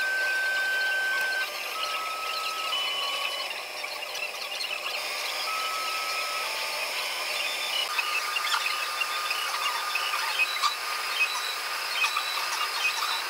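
FlashForge 3D printer running: its stepper motors whine in steady single tones that jump from pitch to pitch as the print head and bed move, over the steady hiss of its cooling fans. From about eight seconds in, quick short moves add a run of ticks.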